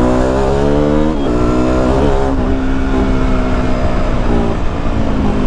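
KTM Duke 200's single-cylinder four-stroke engine through an aftermarket side-mount exhaust, heard from the bike while riding. The engine note climbs under throttle, drops sharply about a second in, then runs fairly steadily with a couple of brief dips.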